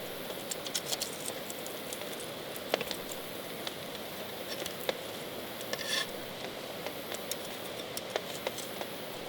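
Steady rain with scattered drops pattering and clicking, and a short louder sound about six seconds in.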